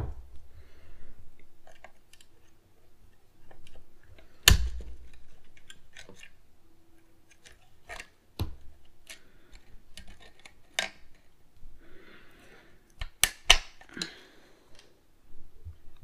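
Scattered metal clicks, taps and faint scraping as a screwdriver works a shift-rod tension spring into a GM steering column's shift-lever opening. A sharp knock about four and a half seconds in, and a quick run of clicks near the end.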